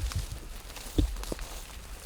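Scattered short knocks and rustles, like footsteps or gear being handled, with one louder thump about a second in, over a low rumble of wind or handling noise.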